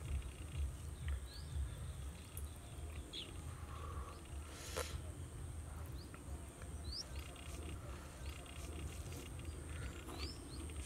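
Outdoor ambience: a few short, rising bird chirps, spaced a few seconds apart, over a thin steady high-pitched tone and a low fluttering rumble.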